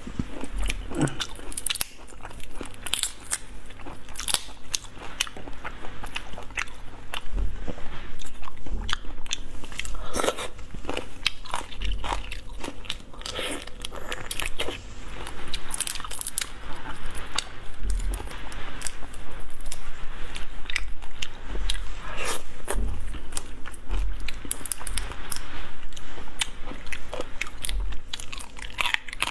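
Close-up eating sounds of spicy marinated raw shrimp: repeated biting and crunching through the shells, with chewing in between.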